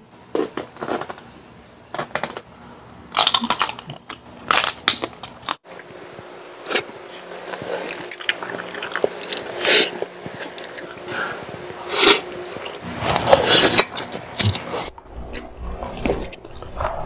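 Close-miked eating sounds: irregular crunching, biting and chewing of food eaten by hand. Sharp cracks in the first two seconds fit a cleaver chopping through crispy roast pig skin.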